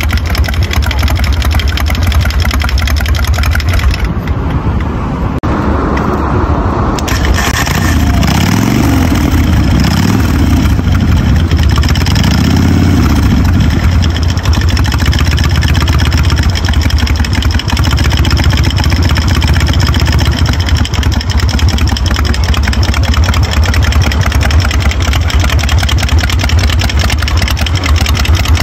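Harley-Davidson V-twin engine of a custom chopper running with a steady, lumpy idle. It is blipped several times a third of the way in, rising and falling in pitch, then settles back to idle.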